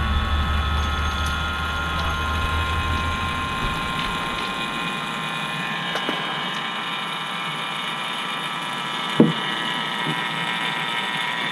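Vacuum pump running steadily while evacuating an air-conditioning system before charging. Its low rumble drops away about four seconds in, and a single short knock comes near the end.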